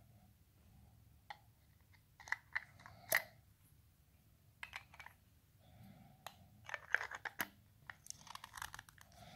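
An AA alkaline battery being fitted into the plastic battery compartment of a Silvercrest nose and ear hair trimmer and the metal end cap twisted back on. It is heard as a scatter of sharp plastic clicks and scraping, loudest about three seconds in and around seven seconds, with a run of small ticks from the cap's threads near the end.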